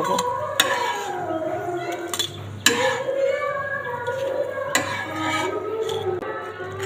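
Spatula scraping and clicking against a non-stick tawa and a steel plate as fried papad pieces are lifted off the pan, with several sharp clicks. A drawn-out wavering tone carries on underneath.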